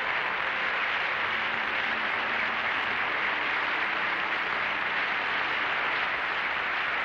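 Studio audience applauding steadily, welcoming a guest's entrance.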